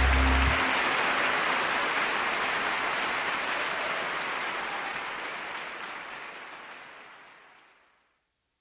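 The band's last low note stops about half a second in, leaving audience applause that fades away steadily to silence near the end.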